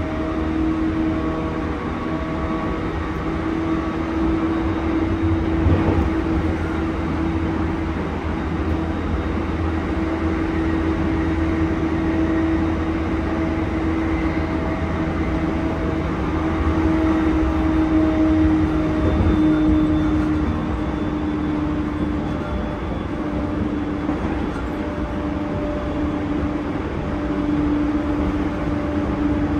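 JR East E231 series 1000-number electric train with Hitachi IGBT-VVVF control, heard inside a motor car running at speed. A steady traction-motor hum sinks slightly in pitch and rises again near the end, over wheel-on-rail rumble, with a couple of faint knocks from the track.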